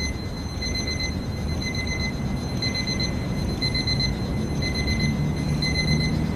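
Electronic alarm beeping, a high-pitched tone pulsing about once a second, over a steady low rumble.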